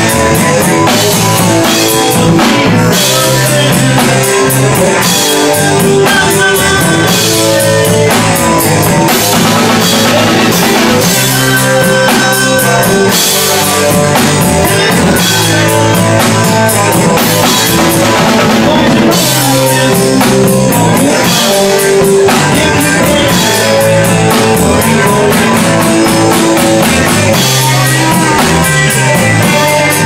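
Live rock band playing: electric guitars through amplifiers over a drum kit, loud and steady.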